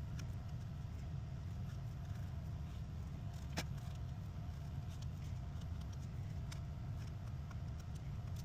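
Steady low background hum with a few faint, light clicks scattered through it, the clearest about three and a half seconds in.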